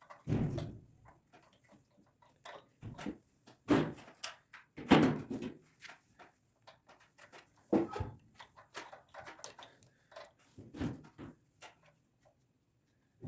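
Irregular clicks, knocks and clatter of small parts and hand tools being handled, with a few heavier thuds spread through.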